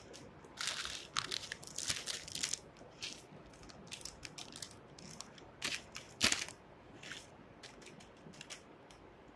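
Plastic instant-noodle packet crinkling in a string of irregular crackly bursts as it is squeezed and shaken out, emptying broken noodle bits into the pan. The loudest crackle comes about six seconds in.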